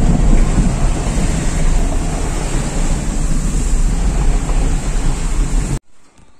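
Car driving fast through standing water on a flooded road, heard inside the cabin: a steady rush of water spray thrown from the tyres over a low rumble. It cuts off abruptly near the end.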